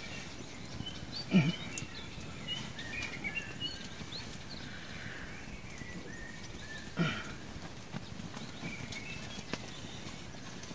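Small birds chirping here and there, with two short, low calls from a larger animal, one about a second and a half in and one about seven seconds in.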